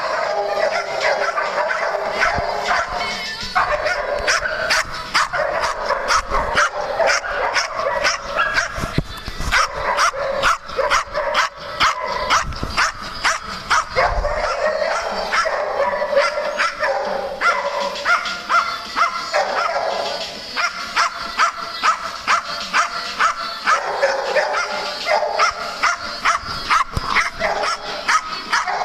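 A group of dogs barking and yipping together without pause, many quick overlapping barks a second.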